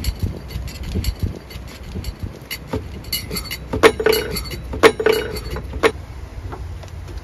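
Wind rumbling on the microphone, with three sharp clinks about a second apart around the middle.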